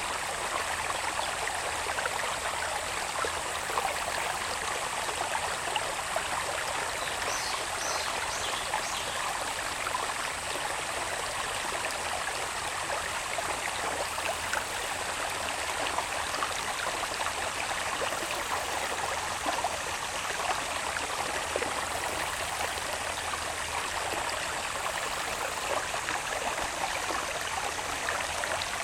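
Small irrigation channel babbling steadily as it flows down from the hills, with a continuous high drone of summer insects over it.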